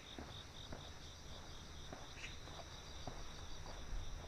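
Crickets chirping in an even pulsing rhythm, about three to four chirps a second over a steady high trill, with a walker's footsteps about twice a second.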